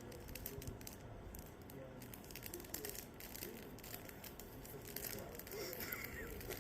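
Chocolate bar wrapper crinkling and tearing as it is opened, a run of quick crackles.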